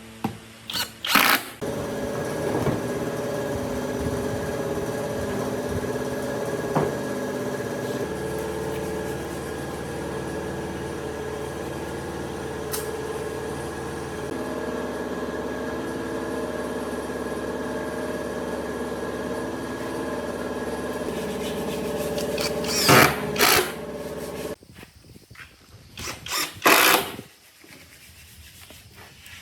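Electric power tool running steadily for about twenty seconds, then switching off, followed by a few short loud bursts of noise.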